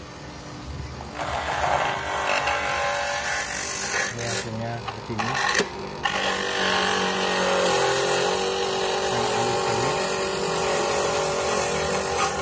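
Electric coconut grater running, its motor-driven toothed drum grating coconut flesh: a steady motor whine under a grinding rasp that gets louder about a second in, with brief dips between about four and six seconds in.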